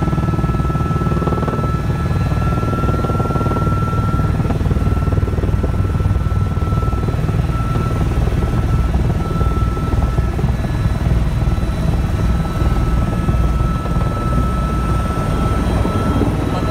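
Helicopter in flight heard from inside the cabin: steady loud low rotor and engine noise with a thin steady high whine on top.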